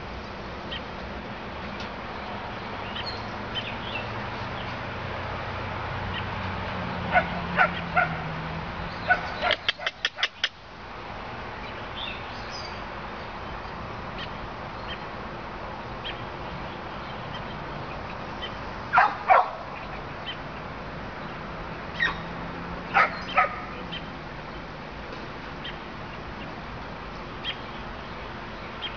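Coonhounds barking in short groups: a few barks about seven seconds in, a quick run of sharp ones just after, two loud barks near twenty seconds, three more a few seconds later and a single one near the end. A steady low hum lies under them.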